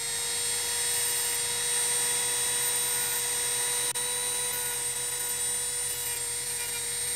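Handheld rotary tool with a small abrasive wheel spinning at high speed: it comes up to speed right at the start, then runs with a steady high-pitched whine.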